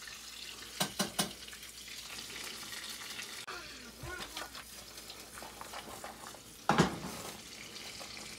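T-bone steak sizzling steadily in a frying pan on a gas burner. A few sharp clicks about a second in, and a louder knock later on as the pan is handled.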